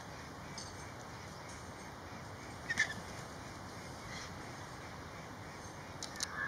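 Vultures squabbling over a carcass, giving a few short, harsh calls over a steady background hiss. The loudest comes near the middle, with fainter ones later and near the end.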